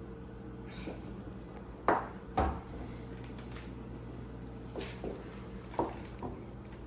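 Small bells on a wand cat toy clinking and tapping as the cat bats at it: two sharp taps about two seconds in, then a few lighter ones.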